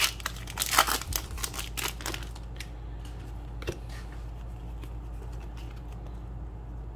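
Foil Pokémon card booster pack wrapper being crinkled and torn open: a quick run of crackles for the first two or so seconds, then only a few soft rustles and clicks.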